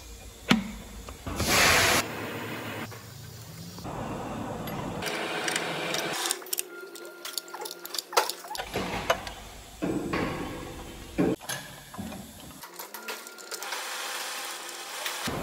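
Metal clinks, knocks and scrapes of a seal-installer tool and wrench being worked against an engine's flywheel housing as the rear crankshaft oil seal is pressed in. A brief loud hiss comes near the start, and the background changes abruptly several times.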